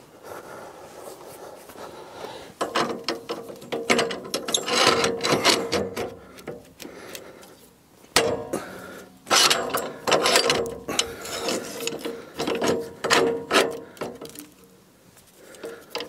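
Sawmill toe board mechanism being worked by hand: metal ratcheting and grinding in two bouts, the first about three seconds in and a longer one from about eight seconds in.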